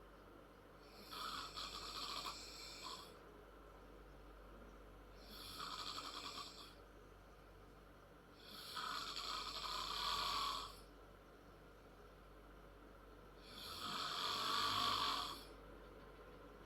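A ten-year-old girl snoring loud and hard: four snores at roughly four-second intervals, each lasting one to two seconds, the last two the loudest.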